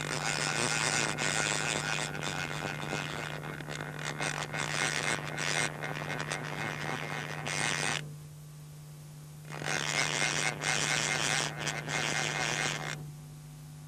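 Salmon fly reel's click-and-pawl check buzzing as a hooked fish pulls line off the reel: one long run, a pause of about a second and a half some eight seconds in, then a second run that stops shortly before the end. A steady low mains hum sits underneath.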